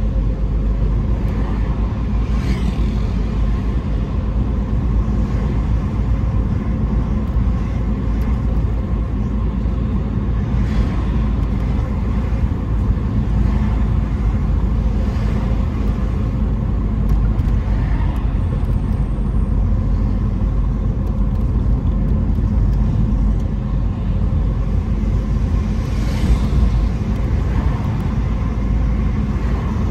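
Car driving through city streets: a steady low rumble of engine and tyres on the road, with a few faint brief noises from passing traffic.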